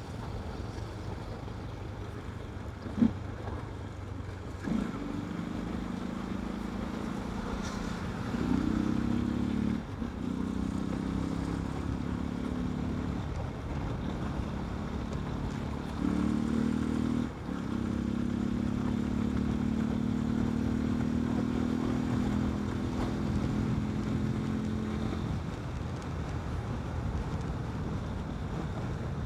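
Yamaha Fazer 250 single-cylinder engine running without its air filter while being ridden, its note held fairly steady with several brief breaks and shifts in pitch, then dropping away near the end. A sharp click about three seconds in, with a steady low rumble of road and wind noise underneath.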